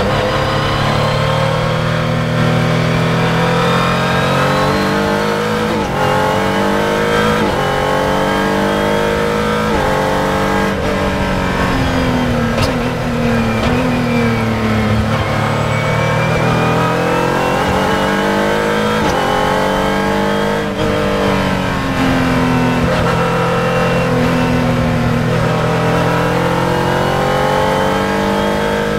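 F2000 single-seater racing car's engine heard from the cockpit, revving up and down through the gears. Its pitch climbs under acceleration and drops at each gear change, several times.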